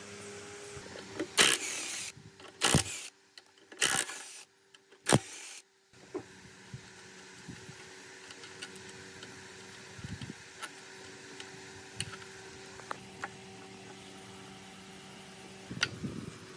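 Metal air-compressor parts being handled and worked with hand tools: four loud short knocks and scrapes in the first six seconds, then scattered light clicks of metal on metal, over a steady low hum.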